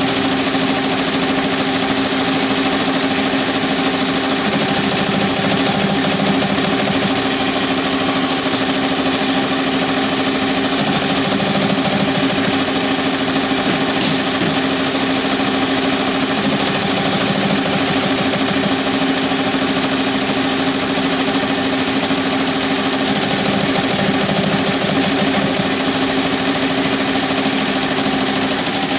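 Tajima TFMX-C1501 15-needle commercial embroidery machine running steadily with a rattling sound, a fast even clatter of the stitching mechanism.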